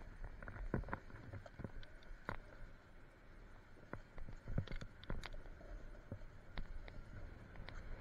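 Skis sliding and scraping over groomed snow, with irregular clicks and scrapes as the edges chatter, over a steady low rumble.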